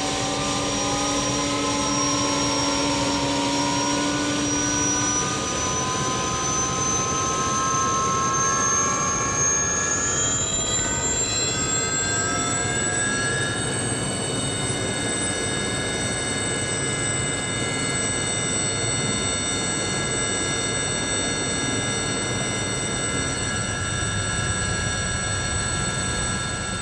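A turbine engine, jet-like, winding up. Several whining tones over a rushing noise climb in pitch for roughly the first half, then hold steady at a high whine.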